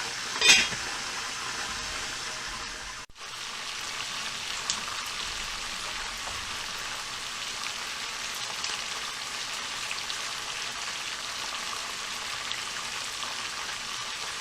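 Hot oil sizzling and crackling steadily as food fries, with scattered pops. A short, loud clatter about half a second in.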